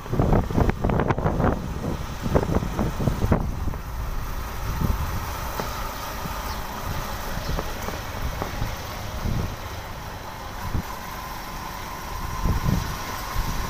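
Wind and road noise from a moving motorcycle: wind buffets the microphone heavily for the first three seconds or so, then settles into a steadier rush. It swells again near the end as a truck is passed alongside.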